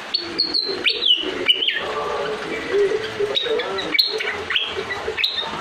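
A srikatang songbird in full song, giving a run of short, sharp high whistled notes, several of them falling in pitch, about seven across a few seconds.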